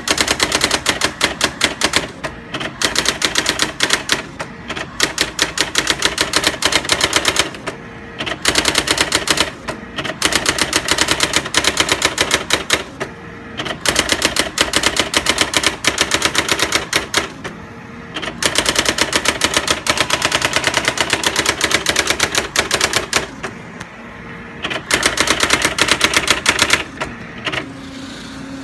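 Brother GX-6750 daisy wheel electronic typewriter printing: fast runs of sharp strikes lasting a few seconds each, broken by short pauses, some with a brief motor hum.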